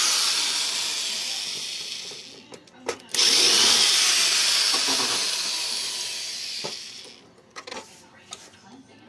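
Motor of a handheld Ozito power tool running in two long runs. The second starts suddenly about three seconds in, and each fades away over a few seconds. A few light knocks follow near the end.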